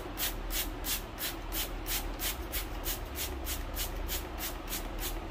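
Bristle shoe brush scrubbing a shoe in quick, even back-and-forth strokes, about three a second, each stroke a short hiss, over a steady low rumble.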